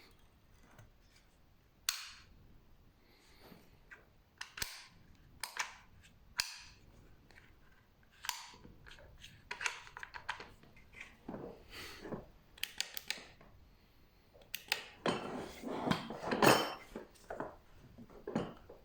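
Sharp clicks, clacks and clatter of hard plastic and metal parts being handled, typical of a power tool and its case or accessories being unpacked or fitted. The clicks come singly at first and bunch into a busier clatter near the end, the loudest clack coming there.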